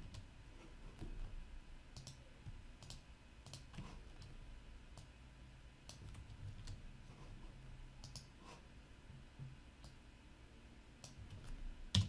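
Faint, irregular clicking of a computer mouse and keyboard while tag fields are edited.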